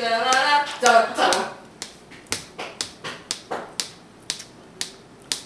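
Steady ticking, sharp ticks about two a second, with a voice over it during the first second and a half.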